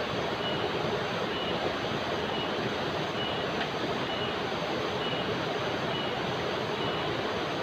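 River rapids rushing steadily over boulders. Over the water, an insect calls with a short, high chirp repeated about once a second.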